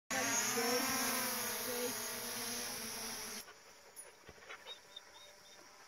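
DJI Mavic Pro quadcopter's propellers buzzing close by with a wavering pitch, cut off suddenly about three and a half seconds in. What follows is a much fainter background with a few short high chirps.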